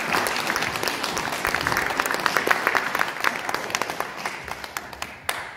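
Audience applauding: many hands clapping, thinning and dying away near the end.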